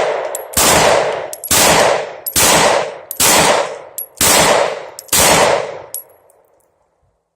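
Semi-automatic pistol fired six times in quick succession, about one shot a second, each crack followed by a short echoing tail.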